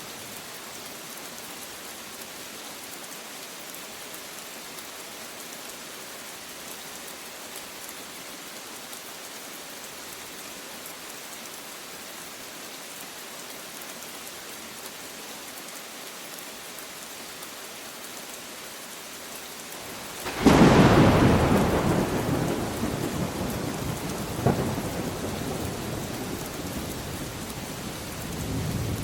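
Steady rain for about twenty seconds, then a sudden loud thunderclap that rumbles away over several seconds, with a second sharp crack a few seconds into the rumble and another low swell near the end.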